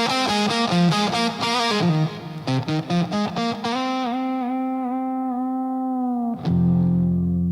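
Slow blues-rock instrumental: an electric guitar solo with effects plays a quick run of notes, then holds one long note with a slight vibrato. A low chord comes in near the end and rings on.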